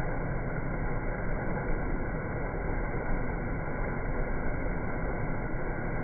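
Multi-tiered waterfall cascading over rocks into a pond: a steady, dull rush of water with no high hiss.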